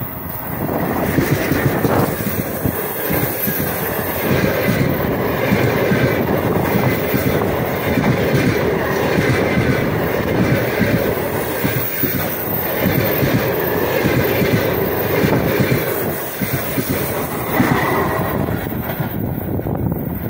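An EP1 electric locomotive passes at speed, followed by a long train of passenger coaches: a loud, steady rolling rumble with rapid wheel clicks over the track. The sound falls away near the end as the last coach goes by.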